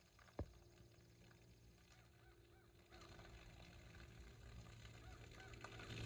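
Faint splashing of a waterfall's stream of water falling onto a brown bear sitting in a pond, stepping up in level about three seconds in. A sharp click just after the start, and a few faint short calls in the background.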